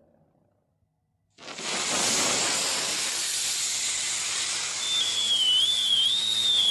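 Near silence, then about a second and a half in a loud, steady hiss of pressurized gas starts suddenly. In the second half a thin, wavering whistle sounds over the hiss and starts to fall in pitch near the end.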